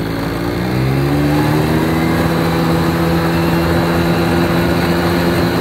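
ATV engine revving up over the first second or so, then running steadily at high revs.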